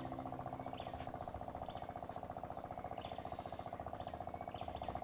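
A small engine running steadily with a fast, even pulsing beat, cutting off abruptly near the end, with faint chirps above it.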